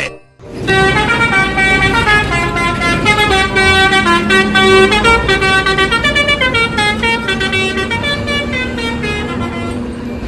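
Bus 'telolet' (Basuri) multi-trumpet air horn playing a tune of several notes at once, stepping from note to note, starting about half a second in and running on for about ten seconds.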